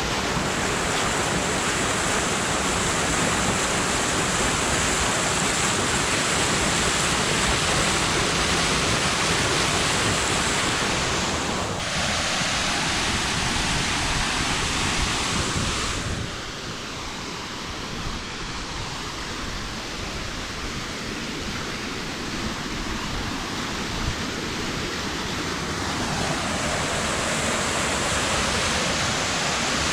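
Waterfall: a steady rush of falling water. The rush turns duller and a little quieter about halfway through, then brightens again near the end.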